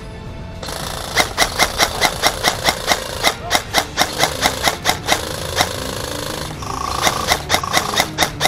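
Airsoft gun firing rapid shots, about five a second, in a long string and then a shorter one near the end.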